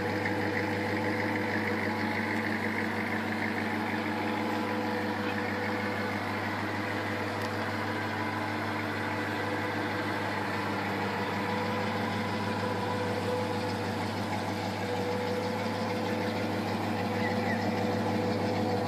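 HSV VS Clubsport's V8 engine idling steadily.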